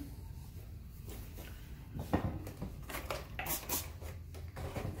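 A few short scratchy taps and brushing rustles from painting at a table, most of them bunched about two to four seconds in, over a low steady hum.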